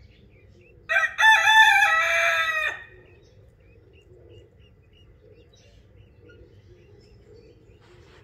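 A rooster crows once, about a second in: a short first note and then a long, held call lasting roughly two seconds.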